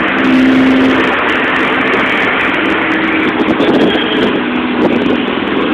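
Road and engine noise inside a moving vehicle's cabin: a steady hiss with a low engine hum that steps up in pitch about halfway through and drops again near the end.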